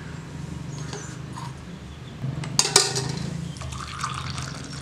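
Hot milk poured from a steel tumbler into a cup of coffee decoction, with a couple of sharp clinks of steel vessels about two and a half seconds in. A steady low hum runs underneath.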